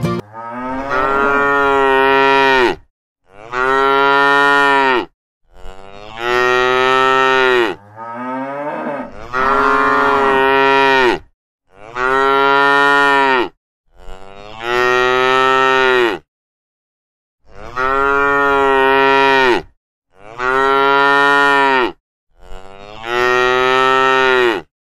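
Cow mooing again and again: about nine long moos, each lasting around two seconds, separated by short gaps of dead silence.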